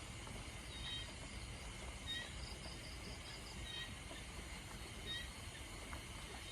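Steady rain at night with small animals calling over it: a short chirp about every second and a half, and a brief rapid trill of about six notes a few seconds in.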